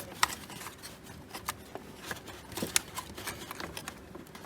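Scattered light clicks and taps of hands and tools working on plastic dashboard trim, coming at irregular intervals.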